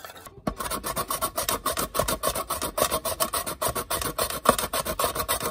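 Carrot being shredded on a plastic julienne grater with a toothed metal blade: quick, even rasping strokes, several a second, starting about half a second in.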